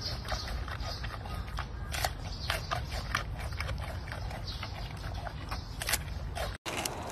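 Giant panda chewing a bamboo shoot: irregular crunching clicks over a low rumble, breaking off briefly near the end.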